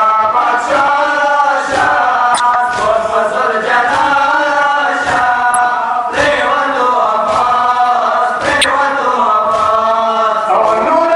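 Men chanting a Muharram lament (noha) in a steady, rhythmic melody, with the mourners' hands striking their chests in time about once a second.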